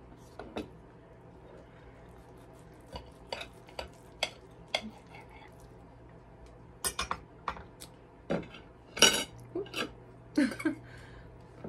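Cutlery clinking and scraping against a baking dish as a baked egg and cheese dish is cut into. There are scattered sharp clicks and knocks, the loudest about nine seconds in.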